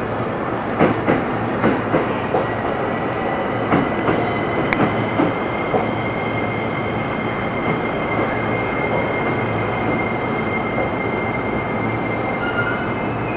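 Electric passenger train running on the station tracks: a run of clacks from the wheels over rail joints in the first five seconds or so, over a steady running noise with a thin, high, steady whine.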